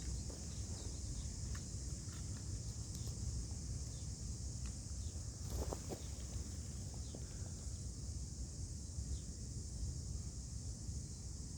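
Outdoor ambience: a steady high hiss and a low rumble like wind, with a few faint clicks, the clearest about six seconds in.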